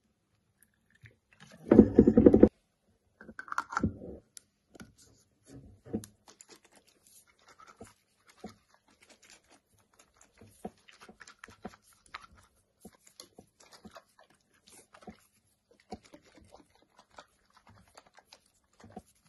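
A capped glass jar being handled on a wooden table: a louder thump about two seconds in, then scattered light clicks and taps as the cap goes on and the jar is turned.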